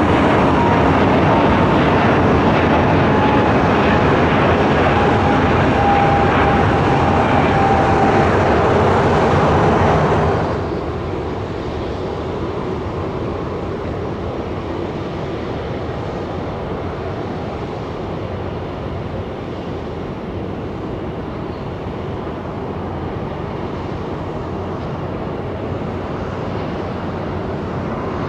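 Airbus A320-family airliner's jet engines at climb power, loud, with a whine slowly falling in pitch as it climbs away. The sound drops off abruptly about ten seconds in, giving way to the quieter, steady engine noise of an Embraer ERJ-135 regional jet on its takeoff run and climb, growing a little louder near the end.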